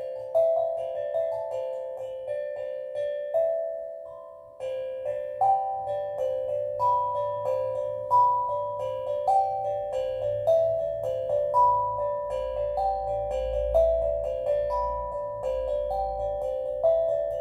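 Steel drum playing a slow, gentle melody of struck, ringing notes that fade after each strike, with a brief pause about four seconds in. A low drone comes in underneath in the second half.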